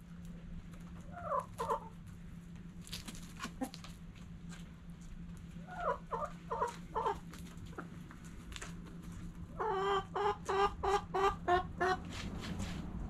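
Domestic hens clucking: a pair of short calls, then four, then a quicker run of about eight calls near the end. Scattered light clicks and a steady low hum sit underneath.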